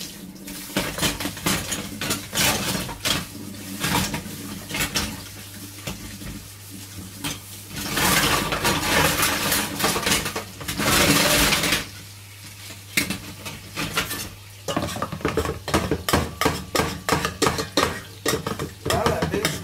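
Dishes, pans and cutlery clattering and clinking as they are handled and washed at a kitchen sink, with many quick knocks. A few seconds of steady rushing noise sit in the middle.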